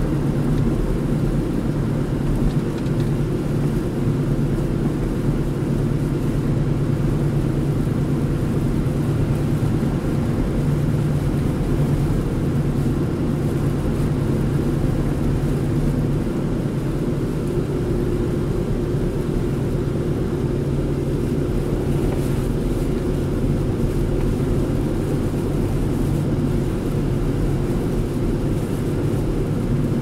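Steady low drone of a car's engine and tyres, heard from inside the cabin while driving on a snow-covered road. Its pitch shifts slightly about halfway through.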